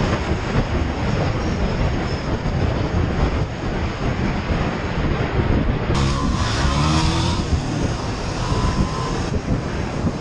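Honda CB500X's parallel-twin engine running under way, buried in heavy wind rush on the microphone. About six seconds in the sound changes abruptly, and the engine note rises and falls on the gravel track.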